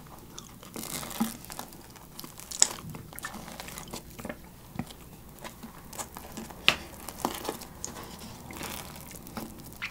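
Hands tearing a slice off a thick gorgonzola pizza: the crust and bread crackle and rip as they pull apart, with a few sharper crunches scattered through.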